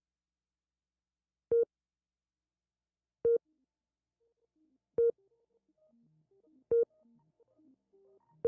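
Short electronic beep tone repeating about every 1.7 seconds, four beeps in all. From about halfway, faint synthesizer music begins to come in underneath.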